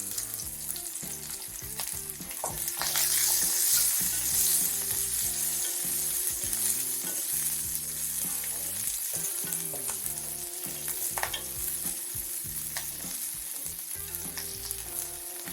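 Chopped onion, ginger, garlic and green chilli sizzling in hot mustard oil, the sizzle swelling about three seconds in, with a few light clicks.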